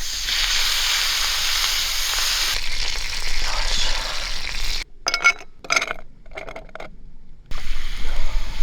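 Food sizzling in a hot pan over a campfire for the first few seconds. It then breaks off into a few short separate sounds, and a low wind rumble comes in near the end.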